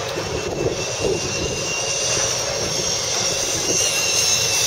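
Zip line trolley pulleys running down the steel cable, a steady whirring whine over a hiss that slowly grows louder as the rider comes down.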